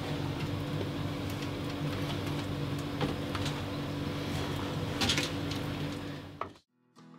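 A steady low machine hum in a small room, with a few light clicks and knocks as cable and tools are handled at the charge controller terminals. The sound cuts off suddenly near the end.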